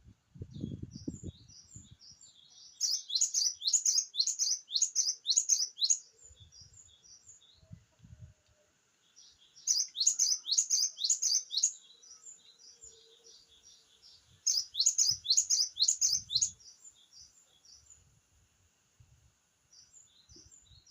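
Cinereous tit (gelatik batu) singing: phrases of fast, repeated high whistled notes, about four a second, each phrase a few seconds long. Softer calls come between them.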